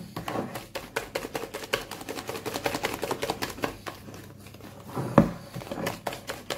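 Wire whisk beating thick cake batter in a plastic bowl: rapid, uneven clicking and tapping as the wires strike the bowl, with one louder knock about five seconds in.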